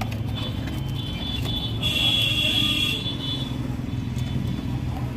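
Motor vehicle noise: a steady low hum with a high whine that comes and goes, loudest for about a second near the middle, and a scattering of short light clicks.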